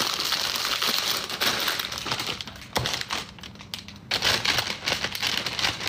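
Packaging being handled and unwrapped: dense crinkling and rustling that thins out after about three seconds into scattered sharp clicks and short rustles.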